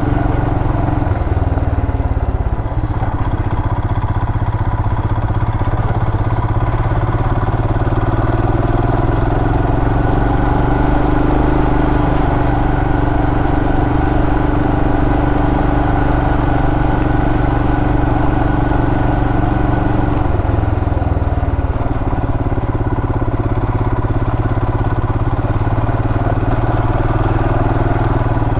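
Royal Enfield Himalayan's 411 cc single-cylinder engine running steadily while the bike is ridden along a muddy trail, picked up by a helmet microphone. The engine note shifts slightly about twenty seconds in.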